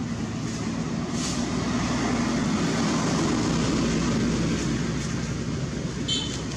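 A steady, low engine drone runs throughout, with a brief high squeak near the end.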